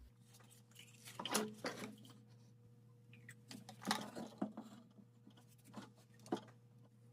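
Faint scrapes and light knocks of ABS plastic drain pipe and fittings being handled and fitted together, in a few short clusters.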